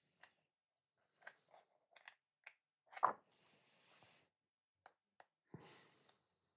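Pages of an artbook being turned and handled: scattered light clicks and taps, with a soft paper swish about three seconds in, the loudest sound, and another near the end.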